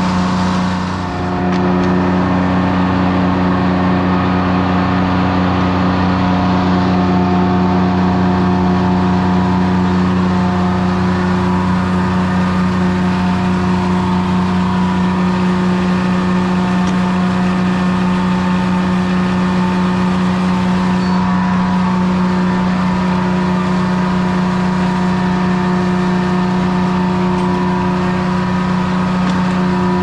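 A 1953 Detroit Diesel two-stroke power unit running a 1940s Corley sawmill, holding a steady speed with no change in pitch, so the saw is not cutting. There is a brief dip in loudness about a second in.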